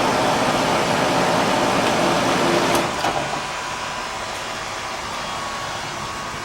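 Westinghouse 40-pint dehumidifier running with a loud, steady rush of air. About three seconds in there is a click, and the sound drops to a quieter steady hum.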